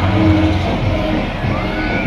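Fairground din: music playing over the voices of a crowd.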